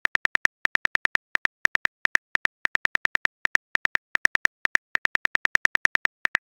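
Phone keyboard typing clicks: a quick, even run of short ticks, about six a second with brief gaps, as a text message is typed out letter by letter.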